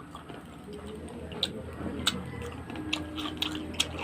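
Close-up eating sounds: a person chewing, with irregular sharp wet clicks and pops from the mouth and food, several of them about midway and toward the end.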